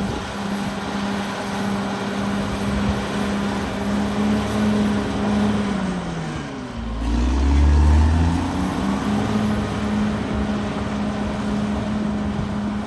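Caterpillar D6R XL bulldozer's diesel engine running steadily. About halfway through, its pitch sags and then climbs back, with a burst of deep rumble, as it takes load and recovers.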